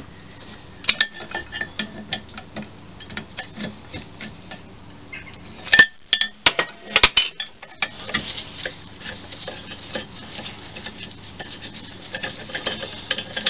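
Small steel bolts, washers and a spanner clinking and rattling as fasteners are undone and handled by hand. Scattered light clicks give way to a cluster of sharp metal clinks about six seconds in, then a busier rattling and scraping of metal on metal.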